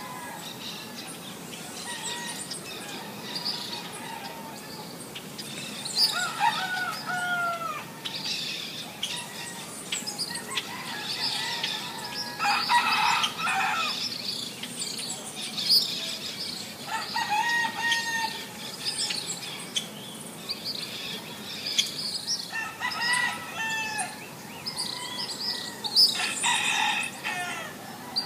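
Roosters crowing about five times, spread out, with small birds chirping throughout.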